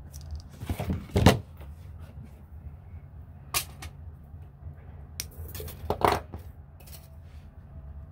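Silver craft wire and its coil being handled: a few short clicks and rustles of the wire against the mat, the coil and the fingers, loudest about a second in and again around six seconds, over a steady low hum.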